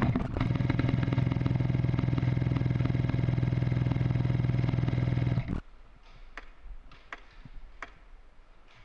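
Classic Army M249 airsoft electric gun firing a long full-auto burst, its motor and gearbox cycling at a rapid, even rate. The burst cuts off suddenly about five and a half seconds in, and a few faint sharp clicks follow.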